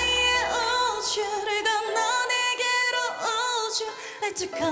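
Female solo voice singing an English line of a slow pop ballad over a backing track, holding notes with vibrato; the bass drops out about two seconds in.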